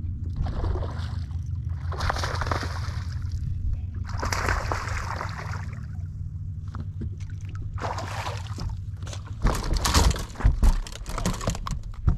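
A hooked largemouth bass splashing and thrashing at the surface beside a boat, heard as bursts of splashing water over a steady low rumble. The splashing grows busier and louder, with sharp knocks, over the last few seconds as the fish is swung aboard onto the deck.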